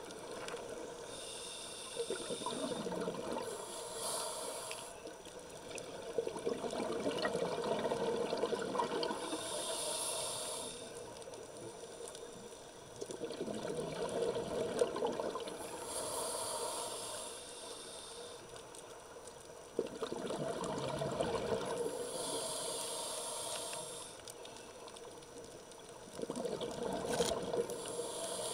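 Scuba diver breathing through a regulator underwater: a short hiss on each inhale, then a longer rush of bubbles on each exhale, repeating every six seconds or so.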